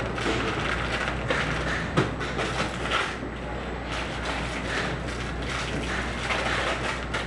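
Steady background din with a couple of sharp knocks, about two seconds in and again a second later, and rustling as paper-wrapped bundles are handled on a wooden tabletop.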